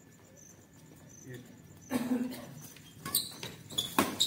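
Badminton rackets striking a shuttlecock during a rally: sharp clicks about three seconds in and a louder crack about four seconds in. They follow a short call from a player about two seconds in.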